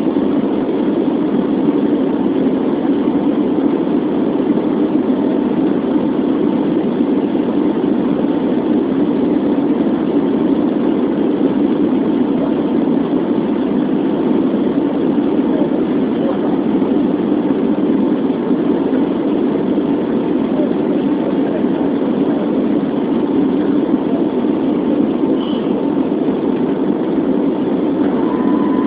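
Steady drone of an airliner's engines heard from inside the cabin, even and unchanging.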